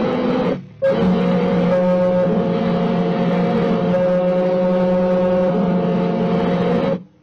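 Radio-controlled bait boat's electric motor running steadily, a hum with a few held tones over water noise, heard from a camera mounted on the boat. The sound drops out for a moment just under a second in and cuts off abruptly near the end.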